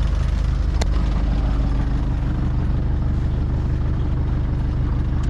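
Sailboat's inboard engine idling steadily at the dock, a constant low hum, with a single sharp click just under a second in.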